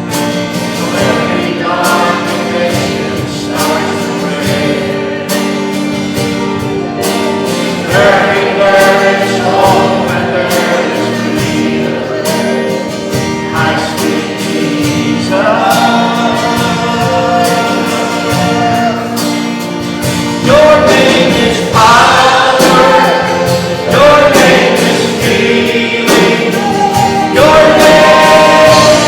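A worship song: a group of voices singing a hymn-like melody over strummed instrumental backing, getting louder in the last third.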